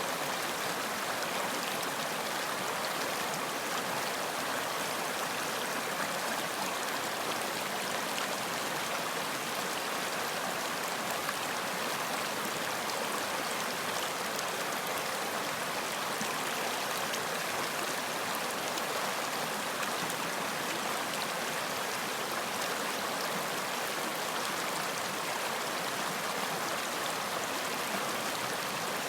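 Running water of a stream flowing steadily, an even wash of water noise with no breaks or changes.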